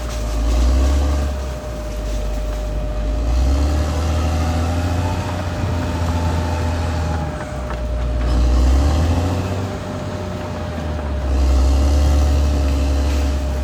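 Caterpillar D6R XL bulldozer's diesel engine running under load while pushing, its low drone swelling and easing every few seconds, with a steady thin whine above it.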